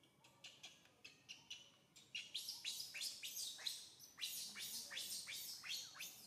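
Baby macaque giving a rapid series of short, shrill squeals, about three a second, each sliding down in pitch. They grow much louder about two seconds in, as the infant cries to nurse.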